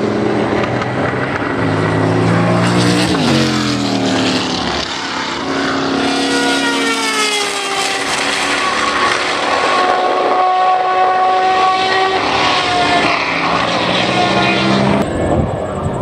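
Matra 670 racing car's V12 engine running hard as it laps the circuit. Its note drops about three to four seconds in, then climbs again and holds high.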